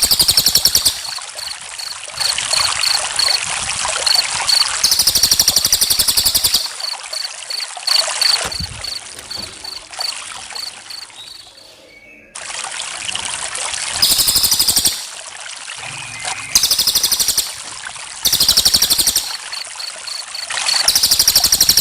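Water trickling steadily, with crickets chirping over it in fast, regular high-pitched pulses and in louder trilling bursts every few seconds. The sound fades and dips briefly about halfway through, then cuts back in abruptly.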